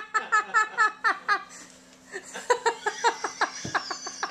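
People laughing hard in a small room: quick runs of high-pitched ha-ha-ha pulses, easing briefly about two seconds in and then picking up again.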